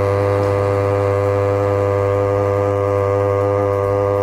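Synthetic text-to-speech voice repeating "now" so fast that the words blur into a loud, steady buzzing drone held at one pitch.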